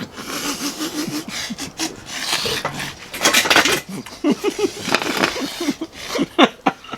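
Fast, messy eating of watermelon: repeated wet bites, chewing and sucking at the juicy flesh, with short throaty noises between bites.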